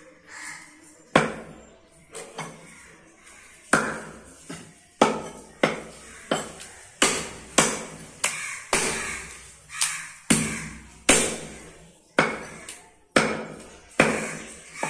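Heavy cleaver chopping goat meat against a wooden log chopping block: a run of sharp chops, each dying away quickly. They are spaced out at first, then come steadily at about two a second.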